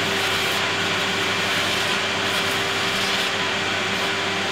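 Workshop vacuum cleaner running steadily, with a constant whine over its low hum, as its nozzle is drawn over the CNC router's wooden bed to suck up the milling dust.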